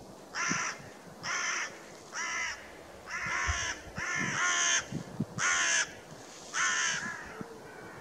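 A bird giving seven harsh, drawn-out calls, about one a second, each about half a second long.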